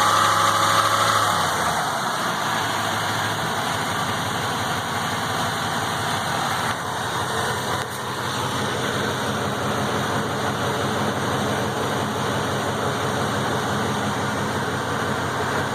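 A new engine running a little above idle, then dropping back to a steady idle about two seconds in. The owner reports a tick that shows just above idle.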